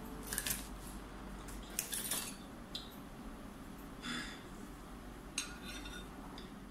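A metal fork and spoon clinking and scraping against a ceramic bowl, in a handful of separate short knocks and scrapes.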